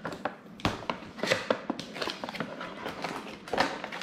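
Cardboard toy box being opened by hand: a run of short clicks, scrapes and rustles from the box flaps and packaging.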